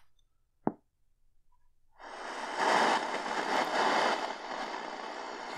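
A single click, then about two seconds in a steady shortwave static hiss comes up from a C. Crane CC Skywave radio, playing through the ICStation GY20915 amplified dual speaker kit.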